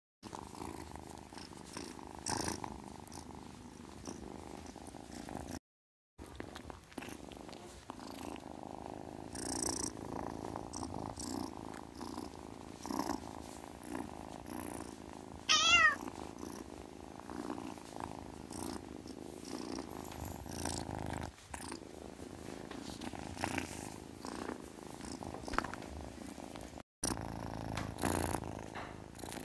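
A cat purring steadily, breaking off briefly twice, with one short high wavering chirp about halfway through that is the loudest moment.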